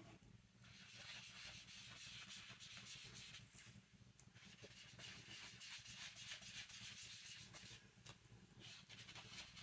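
Faint soft scrubbing of an ink blending tool worked over cardstock, applying red ink, in three long passes with short breaks between them.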